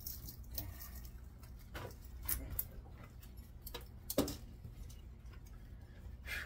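Irregular clicks and taps of hand tools and parts as an electric motor is worked apart by hand for its copper, the sharpest about four seconds in, over a faint steady low hum.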